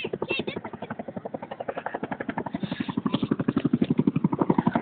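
CH-47 Chinook tandem-rotor helicopter flying overhead, its rotor blades beating in a rapid, even thump that grows louder about halfway through.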